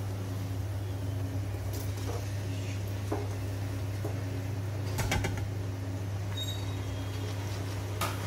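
Chopped tomatoes tipped off a plate into an aluminium cooking pot of frying onions, heard as a few light clicks and knocks, with a cluster of them about five seconds in. A steady low hum runs underneath.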